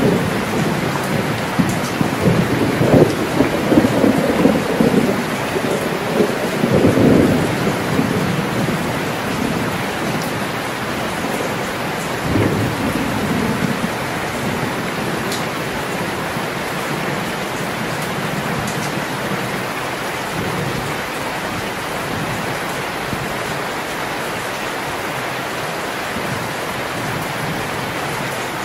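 Heavy rain pouring steadily. Thunder rumbles through the first several seconds and again more weakly about twelve seconds in, then fades, leaving the rain alone.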